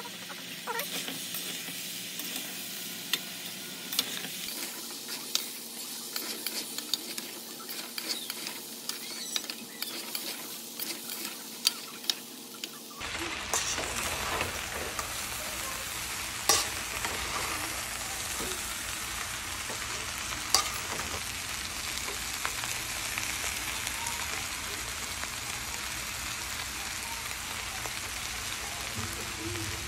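Rice, lentils and vegetables sizzling in a stainless steel pan while a metal spatula stirs them, scraping and clicking against the pan. About 13 seconds in, the sizzle turns louder and steadier, with only an occasional click.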